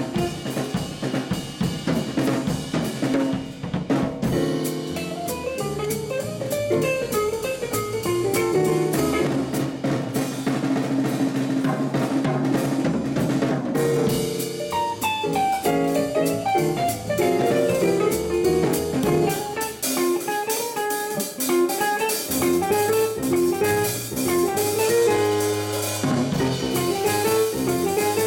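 Live jazz band playing a blues, with the drum kit prominent (snare, bass drum and cymbals) under running bass and guitar lines.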